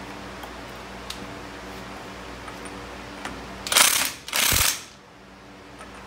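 Hand ratchet wrench clicking in two short bursts about four seconds in, turning the spindle nut on a front wheel hub to snug the hub and brake rotor onto the spindle.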